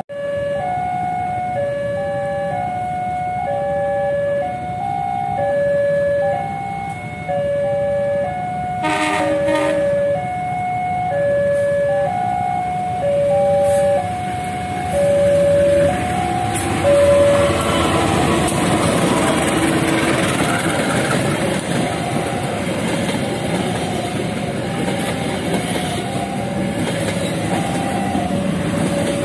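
Level-crossing warning alarm sounding in two alternating tones. About 9 s in, an approaching diesel locomotive (CC 201) gives a short horn blast. From about 17 s on, the passenger train rumbles and clacks over the crossing, louder than the alarm.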